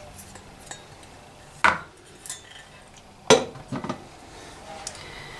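A spoon knocking against a mixing bowl, two sharp knocks about a second and a half apart, with a few lighter clicks just after the second.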